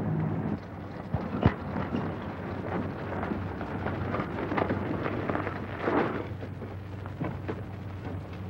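Stormy-night sound effects: a rushing, crackling noise, with a sharp crack about a second and a half in and a swell near six seconds, over a low steady hum.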